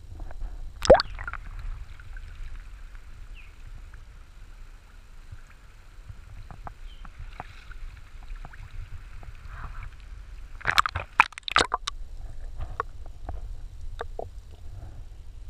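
Water sloshing and gurgling around a GoPro in its waterproof housing, over a steady low rumble. There is a sharp splash about a second in and a quick cluster of splashes around ten to eleven seconds in, as the camera breaks the surface and plunges back under.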